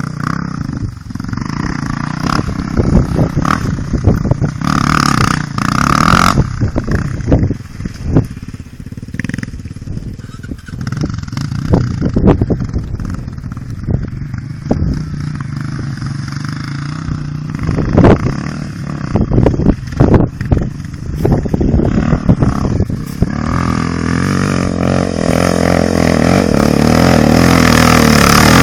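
Trail motorcycle engine running at low revs with scattered knocks and rattles. Over the last few seconds it revs up steadily and gets louder.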